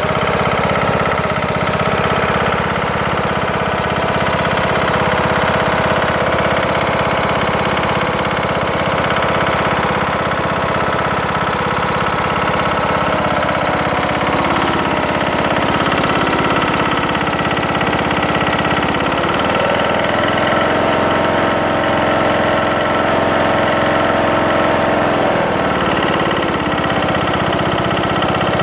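Briggs & Stratton engine of a Craftsman LT2000 lawn tractor running steadily with a loud knocking. The engine has a new camshaft and timing gear and has lost some power. The owner wonders whether a piston is going bad or something is hitting inside. The engine note shifts slightly about two-thirds of the way through.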